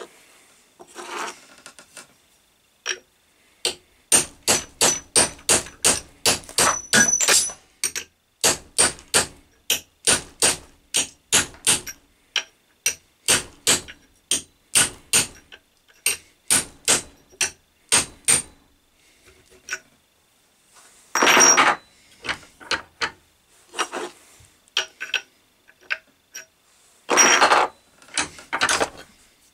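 Small hammer striking a steel punch set against the old handle in the axe head's eye, driving the handle out of the head: a long run of sharp, ringing metal taps, about three a second, for some fifteen seconds. After a pause come a few scattered taps and two short scraping sounds.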